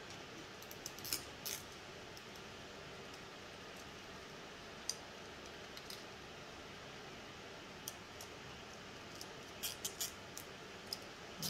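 Faint, scattered small plastic clicks of zip ties and 3D-printed parts being handled and fitted, over a steady low room hiss, with a cluster of clicks near the end.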